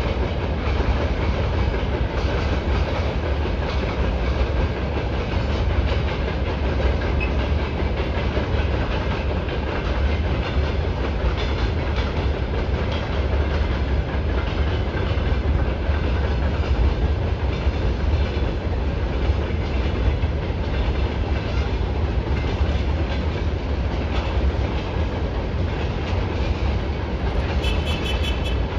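Freight train of open-top gondola wagons rolling past: a steady deep rumble with the clickety-clack of wheels over rail joints. Near the end a rapid high-pitched ticking joins in.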